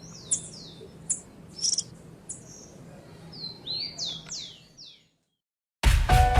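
Domestic canary singing: short high chirps, then a quick run of falling whistled notes, stopping about five seconds in. Music with a beat starts suddenly near the end.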